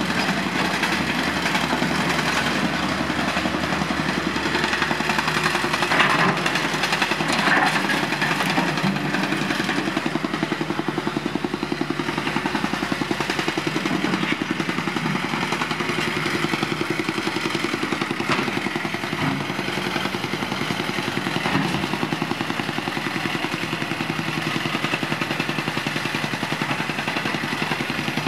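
Engine-driven soil compactor running with a fast, steady pounding rhythm as it tamps down the trench soil, over the running of heavy roadworks machinery. A few brief louder knocks come about six to eight seconds in.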